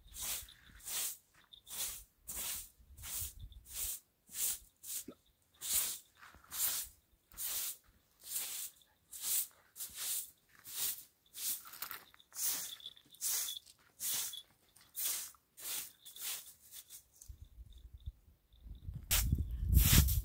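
Repeated short swishing strokes, about three every two seconds, stopping shortly before a louder low rumbling noise begins near the end.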